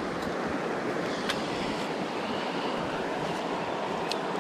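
River current rushing steadily, with a couple of faint sharp ticks about a second in and near the end.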